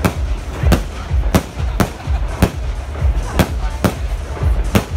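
Aerial firework shells bursting: about seven sharp bangs, irregularly spaced, over a continuous low rumble.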